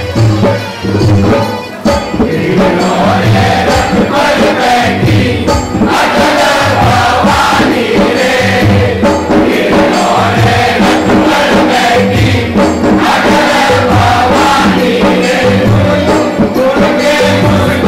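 A group singing a Hindu devotional bhajan to the mother goddess in chorus, over a regular drum beat; the voices come in more strongly about two seconds in.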